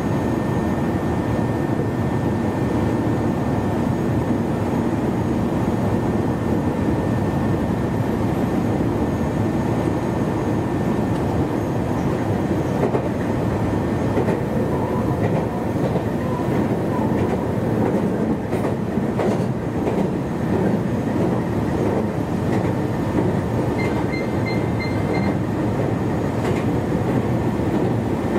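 Meitetsu 1200 series electric train running steadily at speed, heard from on board: a steady rumble of wheels on rail with a few rail-joint clicks about two-thirds of the way through. A brief series of high beeps sounds near the end.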